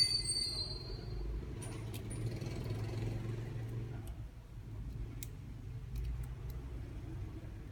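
Light clicks and rattles of a plastic trimmer line spool and nylon line being handled as the line is wound on, over a steady low hum.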